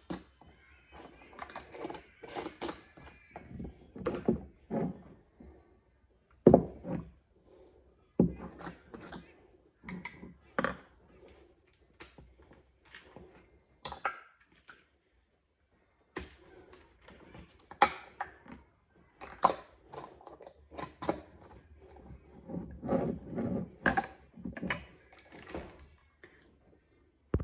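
Irregular knocks, clicks and thunks of cooking utensils and kitchenware being handled, with short quiet gaps between them; one sharp hit about six seconds in is the loudest.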